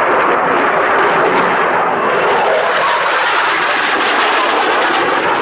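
Loud, steady jet noise from a Eurofighter Typhoon's two Eurojet EJ200 turbofan engines during a display pass, turning crackly in the second half.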